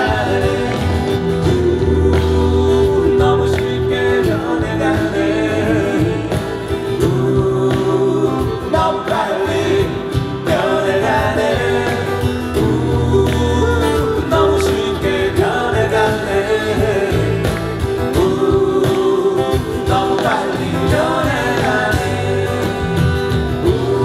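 Live acoustic folk-pop song: two male voices singing together in Korean over strummed acoustic guitars, with a steady low bass part underneath.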